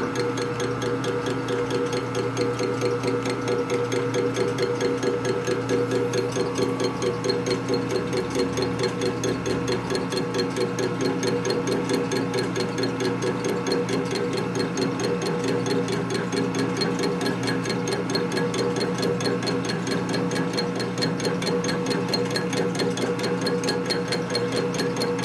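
Milling machine cutting an aluminum brake caliper bracket: a steady machine hum with a fast, even pulsing.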